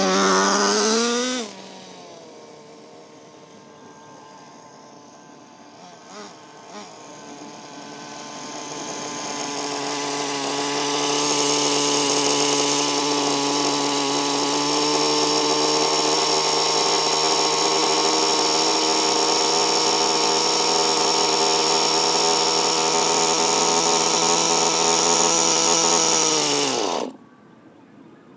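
Small electric air pump of an RC car's air suspension buzzing: a short run at the start that stops suddenly, then a long steady run that builds up over a few seconds, holds one pitch, and cuts off near the end with a slight sag in pitch.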